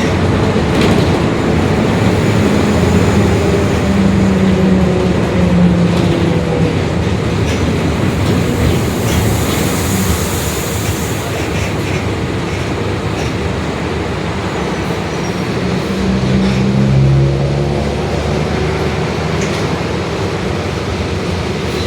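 Mercedes-Benz OF-1721 BlueTec 5 city bus running under way, its diesel engine and drivetrain droning with a whine that falls and rises in pitch with speed: the differential growl that the uploader points out. A short hiss about nine seconds in.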